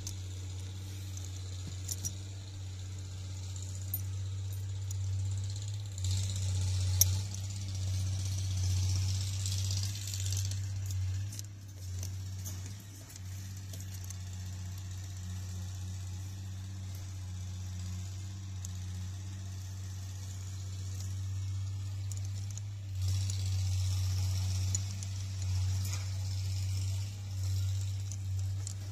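Light metallic clinking and rattling of the pistons, brass slippers and retainer plate of a Cat 424B hydraulic pump's rotating group as they are handled and fitted, with a few sharp clinks. A steady low hum runs underneath, with stretches of hiss at times.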